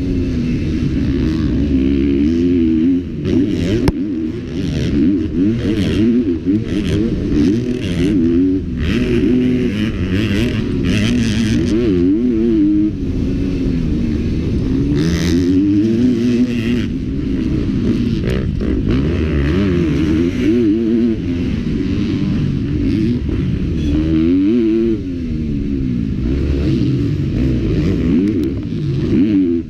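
Four-stroke motocross bike engine at race pace, revving up and falling back again and again as the rider works the throttle and shifts gears.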